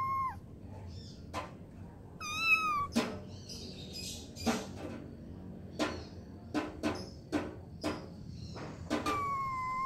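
A cat meowing: a short meow about two seconds in and a longer, steady meow near the end, with scattered sharp clicks in between.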